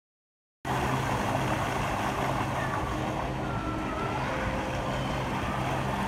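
Many fountain jets splashing down into the pool: a steady rush of falling water, starting about half a second in, with a steady low hum underneath.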